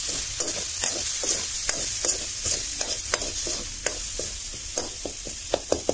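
Metal ladle stirring and scraping tomato masala in a metal kadhai over steady oil sizzle, the ladle scraping the pan about twice a second. The masala of tomato, garlic and spices with turmeric is frying in the oil.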